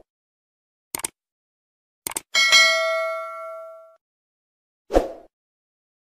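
Subscribe-button sound effects: two pairs of quick mouse clicks, then a bright notification-bell ding that rings on for about a second and a half, and a short swish near the end.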